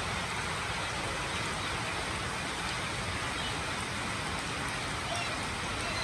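Steady rain falling: a dense, even hiss of drops with a few faint ticks of individual drops.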